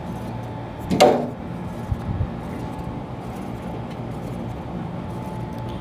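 Light clicks and rattles of a split AC outdoor unit's run capacitor and its wiring being handled, over a steady low background hum. A short, sharp sound about a second in is the loudest.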